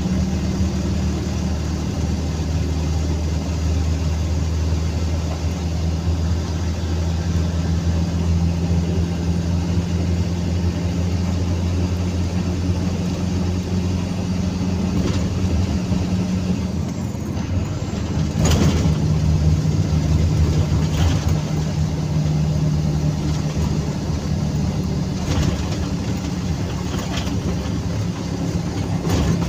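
Truck engine running steadily under way, heard inside the cab with road noise. About halfway through the engine note dips briefly and settles slightly lower, and a few short knocks and rattles follow.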